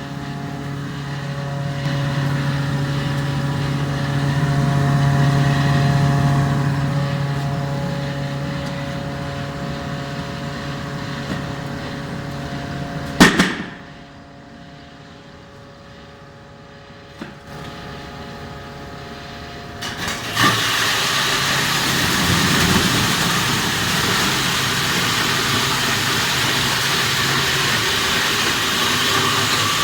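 Ice-block crusher with a fan running on test: a steady motor hum, then a sharp clank about 13 seconds in, after which it goes quieter. About 20 seconds in, a louder, even rushing noise starts and holds.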